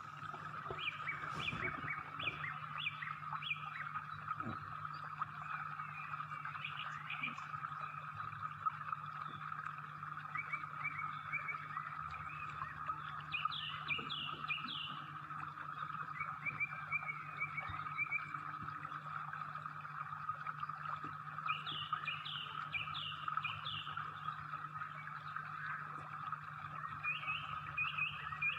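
Birds chirping in short runs of quick repeated notes, over a steady unbroken chorus and a low steady hum.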